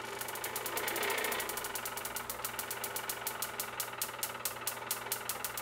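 Homemade Van de Graaff generator running: the steady hum of its belt-drive motor under a fast, regular train of snapping spark clicks, many a second, as charge discharges from the machine.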